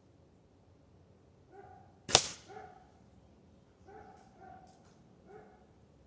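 A single sharp shot from a Ruger Air Hawk Elite 2 spring-piston air rifle about two seconds in. A dog barks faintly and repeatedly throughout.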